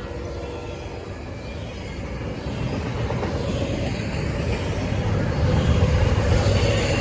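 Diesel locomotives of an approaching freight train, a deep engine rumble growing steadily louder as they draw near, just after the last of a horn blast dies away.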